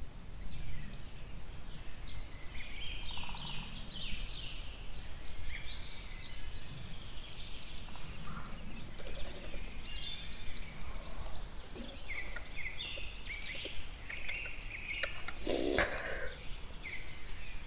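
Birds chirping and calling in the background: many short, high chirps over a low steady background noise, with one brief louder noise near the end.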